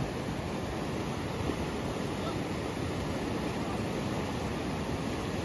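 Mountain river rushing steadily.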